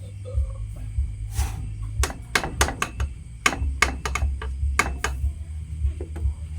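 A knife chopping: a run of about a dozen sharp strikes starting about two seconds in, some in quick succession and some spaced apart, with a single softer knock just before them.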